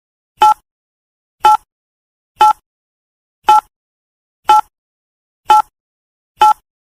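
Countdown timer sound effect: a short electronic beep once a second, seven beeps in all, counting down the seconds.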